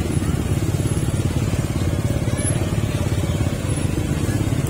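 Engine and road noise of a vehicle being driven: a steady low rumble with a fast, even pulse.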